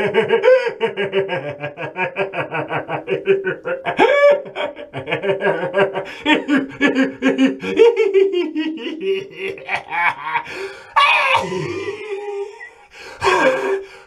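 Man laughing hard in long runs of rapid, staccato ha-ha pulses that break off and start again a few times.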